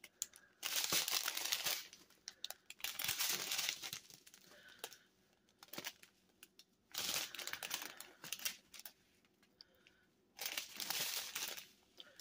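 Thin clear plastic bags of diamond painting drills crinkling as they are handled, in about five short bursts with pauses between.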